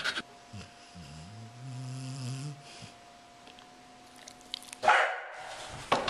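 Bull terrier giving a low, drawn-out grumbling groan lasting about two seconds, followed about five seconds in by a short, loud, noisy huff.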